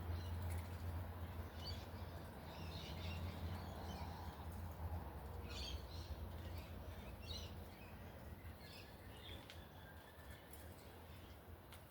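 Faint scattered chirps of small birds over a steady low outdoor hum that slowly fades.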